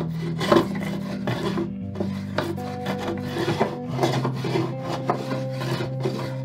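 Profile plane cutting a molding profile into a wooden strip in short, rapid strokes, about two or three a second, each a dry rasping shave. The cut runs partly against the grain and snags on knots, so the planing is rough. Soft background music plays underneath.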